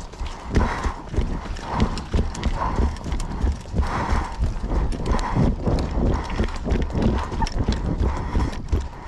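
Running footsteps on a muddy dirt track in a quick, steady rhythm, each stride a dull thud with the rifle and gear jostling, and hard breathing over them.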